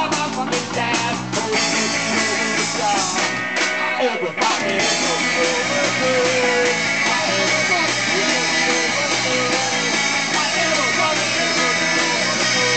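Live rock band playing loud, with electric guitars and a drum kit. At first the drums beat out a clear rhythm under the guitars; about four and a half seconds in this gives way to a dense, sustained wash of guitar.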